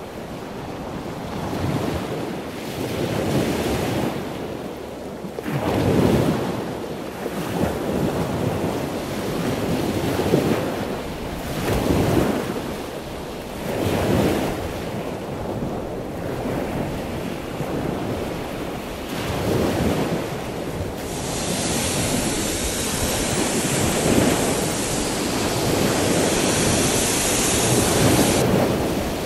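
Wind noise on the microphone aboard a moving boat, surging and easing every couple of seconds. For the last several seconds a steady hiss takes over.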